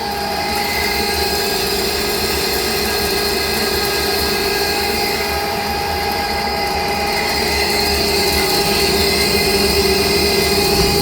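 CNC lathe cutting at high feed with round RCMT 1204 carbide inserts, 0.5 mm depth of cut at 2.0 mm per revolution, turning toward the tailstock: a steady machining sound with several held tones over a constant hiss, getting a little louder toward the end.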